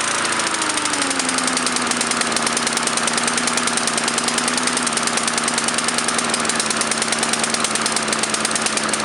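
Small lawn mower engine running steadily after its carburetor's main jet was cleared. Its pitch drops about a second in and then holds.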